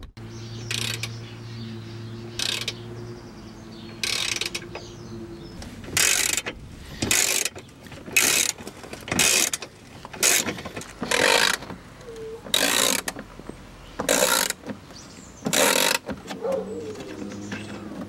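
Socket ratchet clicking in a series of short bursts, about a dozen strokes roughly a second apart, as 10mm bolts on the car's under tray are undone.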